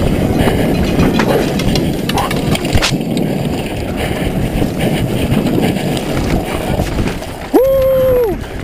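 Downhill mountain bike ridden fast down a rough dirt trail, heard through a bike-mounted action camera: tyre noise, rattling chain and suspension, knocks from roots and rocks, and wind on the microphone. Near the end a loud held tone, about a second long, cuts in over it.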